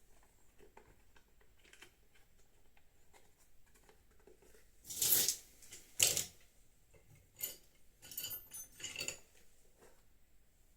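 Hand tools and small bolts being handled while a motorcycle's headlight mask is unbolted: light clicks, two louder clatters about five and six seconds in, then a run of ringing metallic clinks near the end.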